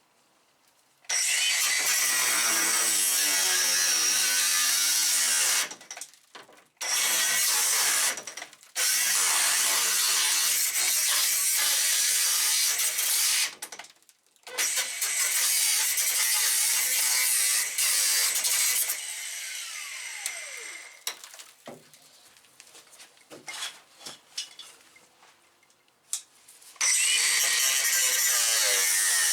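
Power cutting tool cutting through the rusted steel floor pan of a Rover P6 in several long bursts, stopping briefly between cuts, with a quieter spell past the middle before cutting resumes near the end.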